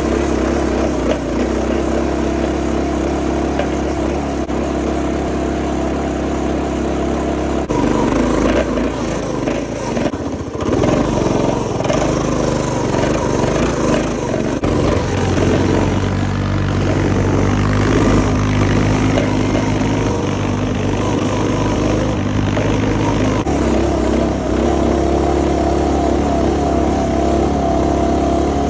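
A minibike's small engine running while being ridden, its engine speed stepping up and down several times as the throttle changes.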